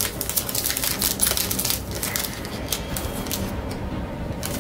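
Foil wrapper of a Pokémon trading-card booster pack crinkling and crackling as hands grip and pull at its top to open it.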